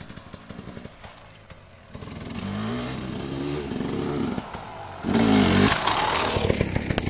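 Off-road dirt bike engine revving, its pitch rising and falling; it is fainter with some clicking over the first two seconds and loudest about five seconds in.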